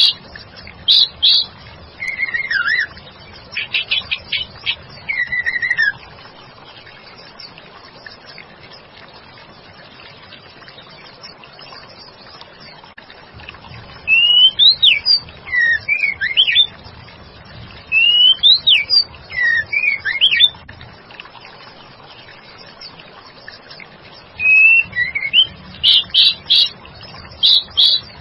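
Female white-rumped shama (murai batu) calling: bursts of rapid clipped notes mixed with whistles that sweep up and down. There are three bouts, with pauses of several seconds between them. It is a female's call, used to provoke a male shama into answering.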